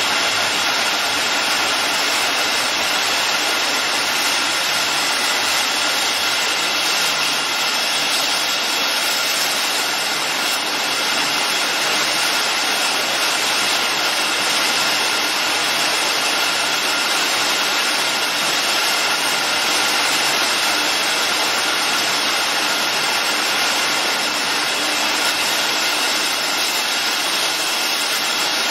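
Three-piece food can body-making line and its can conveyors running: a steady machine drone with several high, even whining tones over it.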